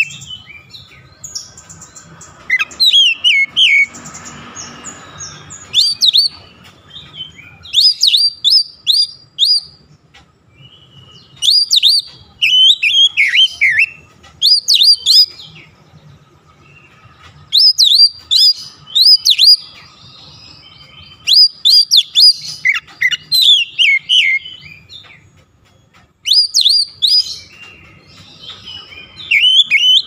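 Oriental magpie-robin (kacer) singing: loud, clear phrases of rapid whistled and hooked notes, repeated every few seconds with short pauses between.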